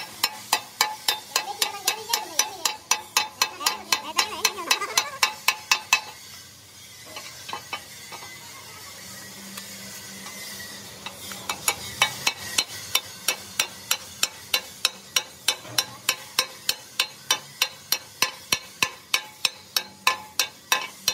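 Rapid, regular hammer taps on steel, about four to five a second, stopping for about five seconds midway and then resuming. The later run is a ball bearing being driven into its steel housing on a gearbox plate.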